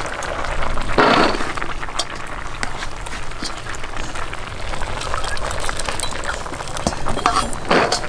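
Boiled red beans tipped from a mesh sieve into a stainless steel basin, landing in a short rush about a second in and again near the end. Between the pours, light clinks of the sieve and ladle against the metal pots.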